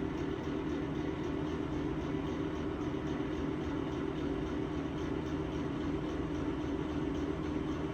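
Exhaust fan running with a steady drone from bad bearings; it sounds like it is about to die.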